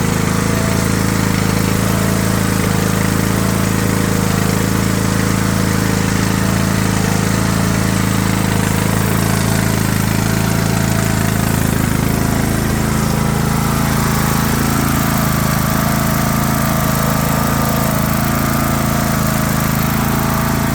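Craftsman LT3000 lawn tractor engine running steadily after its first start of the season, smooth and even with no misfiring.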